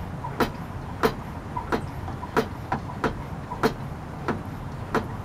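Hand-pump garden pressure sprayer being pumped up: the plunger makes a sharp stroke sound about every two-thirds of a second, steadily pressurizing the tank. A steady low rumble runs underneath.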